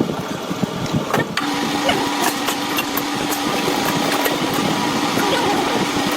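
A machine motor starts about a second and a half in and runs with a steady hum.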